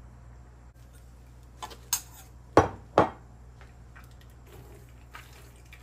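A few sharp knocks and clinks of kitchenware against a frying pan, the two loudest about two and a half and three seconds in, over a low steady hum.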